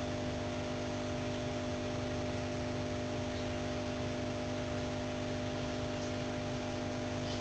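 Steady electrical hum with a constant hiss, made of several steady tones that do not change.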